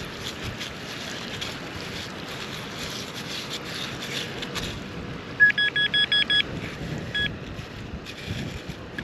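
Metal detector beeping: a quick run of about seven short beeps at one steady pitch about five and a half seconds in, then a single beep near seven seconds, signalling metal close by in the dig. Before the beeps, scratchy rustling of digging in soil, with wind on the microphone.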